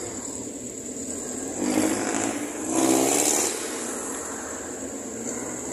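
A motor vehicle's engine passing close by, swelling to its loudest about two and three seconds in, then settling back to a steady hum.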